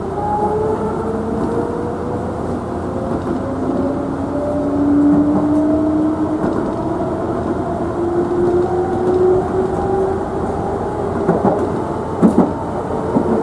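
Meitetsu 5300 series electric train heard from inside a motor car as it picks up speed: the traction motors whine, rising in pitch, over steady wheel-and-rail rumble, with a couple of sharp knocks from the track near the end.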